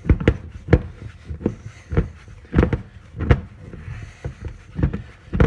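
Pizza dough being kneaded by hand in a mixing bowl: one hand turns the bowl while the other presses and pushes the dough, giving a run of dull thumps, about two a second and unevenly spaced.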